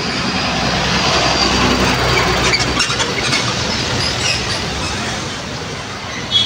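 City street traffic noise, with a truck's engine rumbling as it passes close, loudest about one to three seconds in. A short horn toot comes right at the end.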